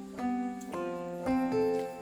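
Background music: plucked or keyboard notes sounding one after another, a new note about every half second.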